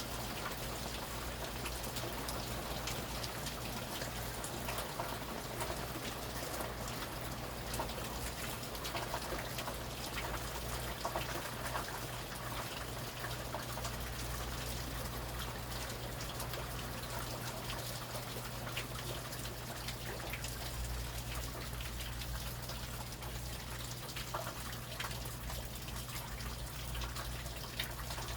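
Steady rain, with many close individual drops pattering on a surface, over a steady low hum.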